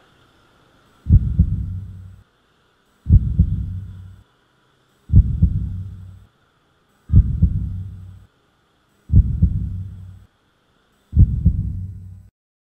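Heartbeat sound effect: six slow, deep double thuds about two seconds apart, each fading away over about a second, over a faint steady hum.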